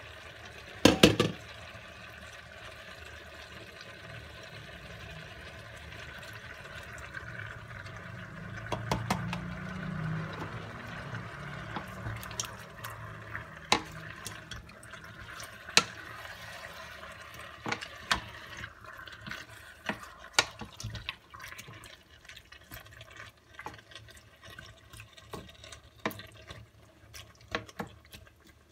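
Stainless steel pot of green beans and potatoes cooking with a steady watery bubbling hiss. There is a sharp metallic clank about a second in and a heavier liquid pour around nine seconds as chopped tomato goes in. Through the second half a wooden spoon knocks against the pot as the contents are stirred.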